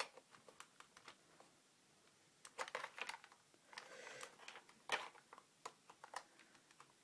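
Faint, scattered clicks and scrapes of a USB plug knocking against a SteelSeries Apex keyboard's rear USB port as it fails to go in, the sharpest click about five seconds in.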